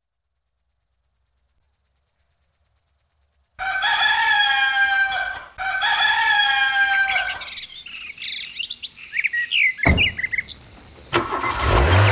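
Insects chirping in a fast, high pulsing trill that fades in, then a rooster crows twice, each crow about two seconds long. Small birds chirp after the crows, and a sharp knock follows near the end.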